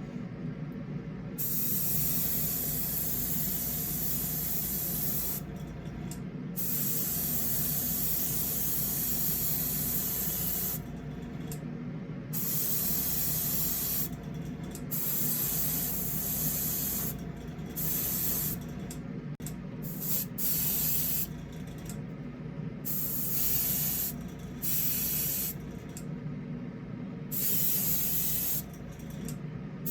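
Airbrush spraying thinned paint in repeated trigger bursts of hiss, long at first and then shorter and choppier, over a steady low hum.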